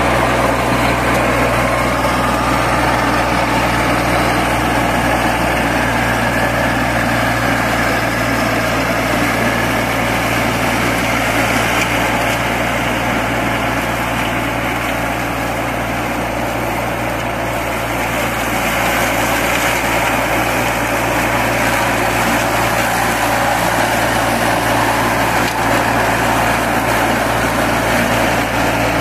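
Baroness LM320AF front-deck riding mower running steadily while it mows tall grass: an even engine hum with the whir of the front cutting deck, dipping slightly in level about halfway through.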